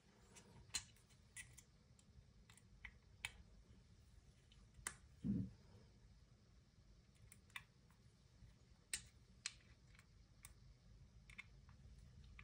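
Faint, scattered clicks and taps of a small hex key working the screws of a Glock magazine base extension, backing them out, with the magazine being handled. One dull thump about five seconds in.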